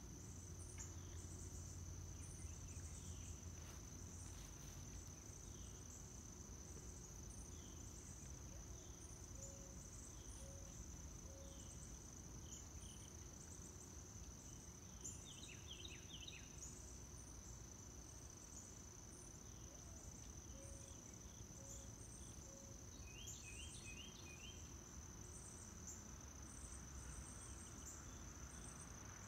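Faint evening insect chorus: a steady high-pitched trill, with short repeated chirping calls over it at times.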